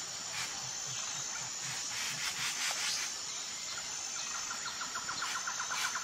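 Tropical forest ambience: a steady high insect drone, with soft low pulses about twice a second in the first two seconds. A scratchy, rasping chatter comes about two to three seconds in. A bird gives a fast trill of repeated notes in the last two seconds.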